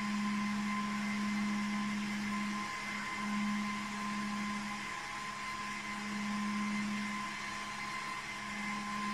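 Cooling fans of a Huawei S6730 network switch running steadily as the switch boots after power-on: an even whir with a steady low hum note.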